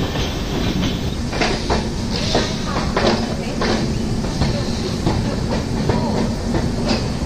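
Passenger train in motion, heard from its open doorway: a steady rumble of wheels on rail with irregular clacks and knocks as the wheels run over rail joints and points.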